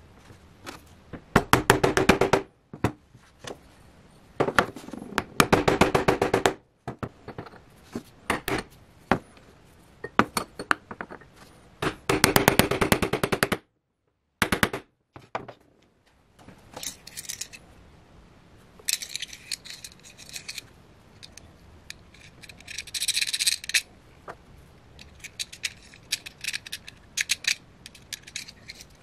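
Rapid bursts of metal tapping as a pin punch is driven against a small brass propane-stove gas valve to knock out its pin, three runs of quick clicks. Then lighter, high-pitched clinking and scraping as the small brass valve parts are handled.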